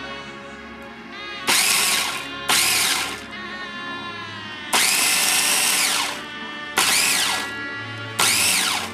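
Small electric food chopper run in five short pulses on its grind button, its motor whining up and winding down each time while chopping a dry, crumbly mix. The longest pulse, near the middle, lasts about a second and a half. Background music plays underneath.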